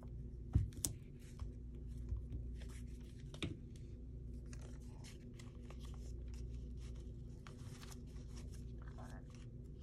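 Paper and craft supplies being handled: scattered rustles, light taps and clicks, with a sharper knock about half a second in, over a steady low hum.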